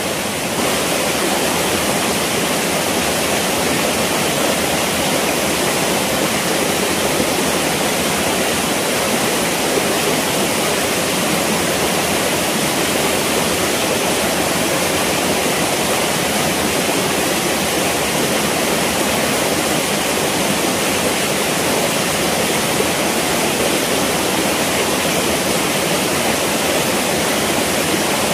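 Shallow forest stream running over rocks and gravel: a steady, even rush of water.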